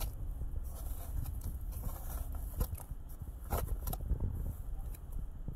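Small hand digging tool scraping and picking at packed dirt around a buried china plate, with a few short sharp scrapes standing out, over a steady low rumble.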